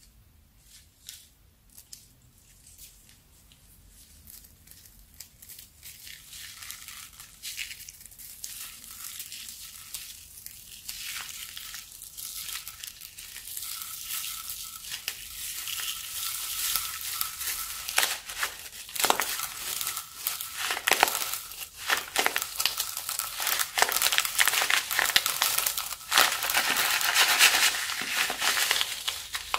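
Clear plastic piping bag full of small beads crinkling as it is squeezed and kneaded in the hands, the beads inside rattling and clicking. It starts faint and grows louder, with dense sharp crinkles toward the end.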